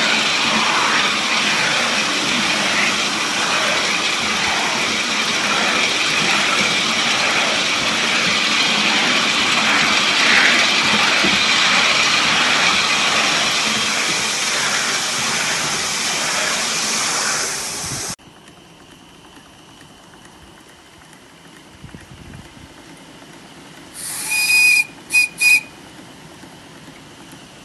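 3½-inch gauge Heilan Lassie live-steam model locomotive running, a loud steady rush of steam and exhaust that stops abruptly about two-thirds of the way through. Near the end its steam whistle sounds one longer toot followed by two short ones.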